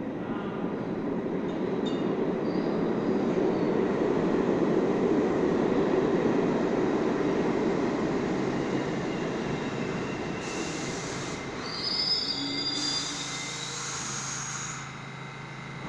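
New York City subway train arriving in the station: a rumble of wheels on rail that swells and then eases as it slows, with high-pitched brake and wheel squeals near the end as it comes to a stop.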